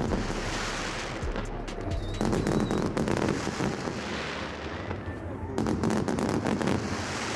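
Fireworks display: aerial shells bursting with dense crackling and popping. The crackle swells louder about two seconds in and again near six seconds.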